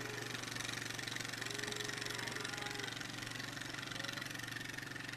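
A vehicle's engine idling or running slowly at a steady pitch, with faint cattle lowing in the background about two seconds in.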